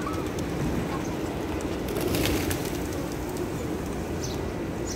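A flock of feral pigeons cooing and flapping over a steady background of crowd noise, with a louder rush of noise about two seconds in.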